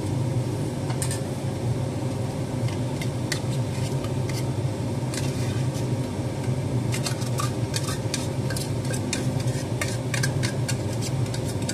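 Tuna being scraped out of a small tin into a salad bowl: light metal scrapes and clicks, scattered at first and then quick and frequent in the second half, over a steady low hum.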